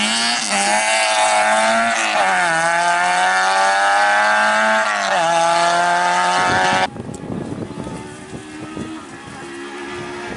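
Rally car engine at full throttle accelerating away, its pitch climbing and dropping twice as it shifts up through the gears. About two-thirds in, the sound cuts off abruptly to a quieter rally car engine heard from further off.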